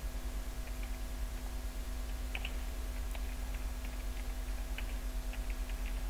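Typing on a computer keyboard: an irregular run of light key clicks over a steady low hum.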